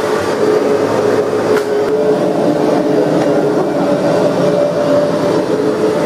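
Vacuum cleaner running steadily: a loud, even motor drone with a steady hum.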